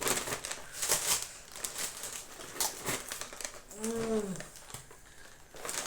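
Packaging handled by hand: crinkling, rustling and scattered light taps and clicks. About four seconds in, a brief hummed vocal sound that rises and falls once.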